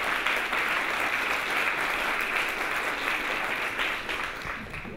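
Audience applauding, a steady clatter of many hands that dies away near the end.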